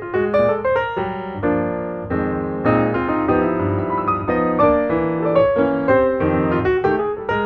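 Background piano music: a run of quick notes, then held chords, then quick notes again.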